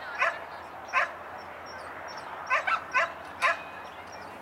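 A dog barking in short, sharp barks, six of them, with three in quick succession just past halfway.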